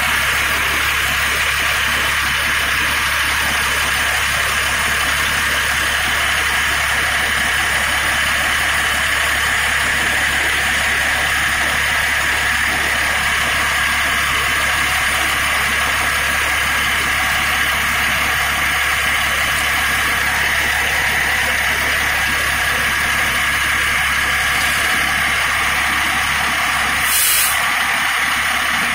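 Fire engine's diesel engine idling steadily from close by. A short hiss of air comes near the end.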